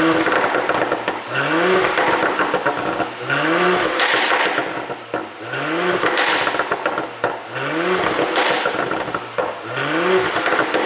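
Porsche Cayenne 3.0-litre turbocharged V6 with its exhaust flaps fully open, blipped up and back down about every two seconds, six times. Pops and crackles come on the overrun from a pop-and-crackle exhaust tune.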